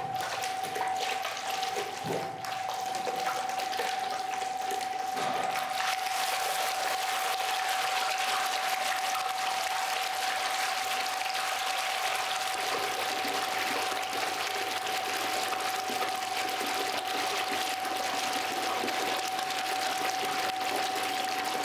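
Beer gushing into an open fermenting vat through the inlet at its bottom, splashing and foaming as the vat fills. The rush builds over the first few seconds and then runs steadily, with a thin steady tone underneath.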